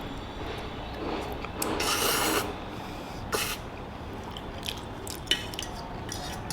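Close-up eating sounds of someone eating spicy ramen noodles. There is a long slurp about two seconds in and a shorter one a second later, with small wet clicks of chewing in between.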